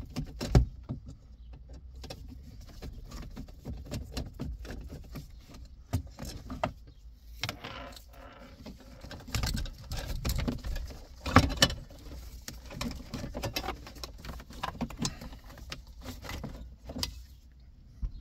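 Irregular plastic clicks, knocks and rattles of gloved hands unplugging wiring connectors and pulling the transmission control computer out from behind the dashboard, with two sharper knocks, about half a second in and around eleven seconds.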